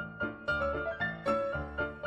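Background music: a light keyboard melody of short, separate notes, several a second.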